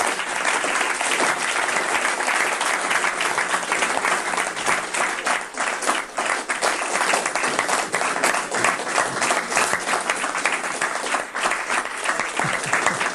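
Audience applauding: a long, steady round of many hands clapping.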